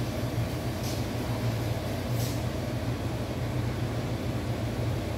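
Steady low droning hum of something running continuously, with two faint brief high ticks about one and two seconds in.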